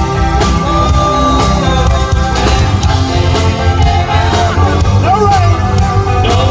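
Live band playing a Christmas pop song through a loud PA, with a lead voice singing over a steady drum beat and bass.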